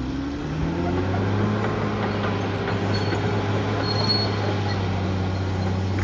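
Caterpillar D6R XL bulldozer's diesel engine revving up over about the first second, then running steady and hard as the machine works.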